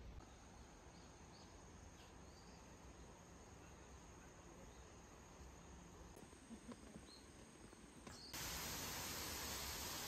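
Faint outdoor ambience with a few faint chirps. About eight seconds in it switches suddenly to the steady rushing of a small waterfall and stream.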